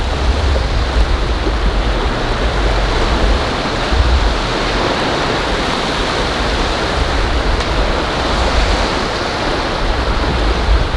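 Sea surf washing steadily onto a beach, with a low, wavering rumble underneath.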